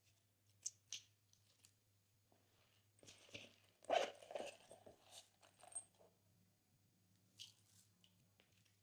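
Glossy slime being squished and mixed, giving scattered small clicks and crackles: two sharp clicks in the first second, a denser run of crackles and pops from about three to six seconds in, loudest around four seconds, and one more click near the end.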